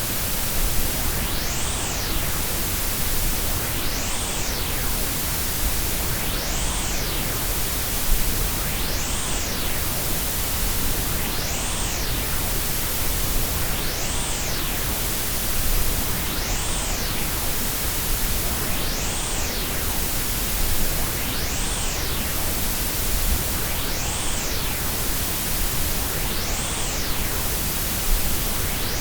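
Combined white, pink and Brownian noise: a steady full-range hiss and rumble. A faint sweep rises and falls in the treble about every two and a half seconds.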